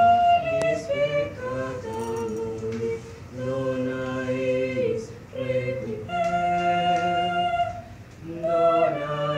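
Two young singers performing a devotional hymn, in long held notes with short breaths between phrases.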